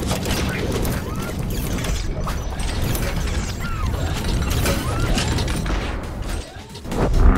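Sound effects for a car being built up out of metal parts: continuous mechanical clattering and ratcheting over a low rumble. A loud hit lands near the end.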